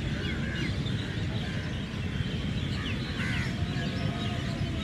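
Outdoor ambience: birds chirping in short gliding calls over a steady low rumble.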